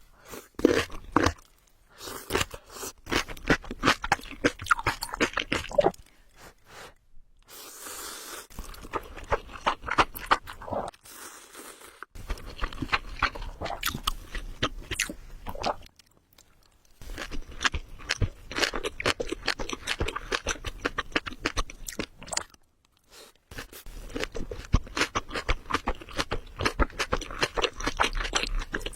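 Close-miked eating sounds of a person chewing, with crisp crunching and wet mouth clicks. They come in bouts of several seconds broken by short pauses.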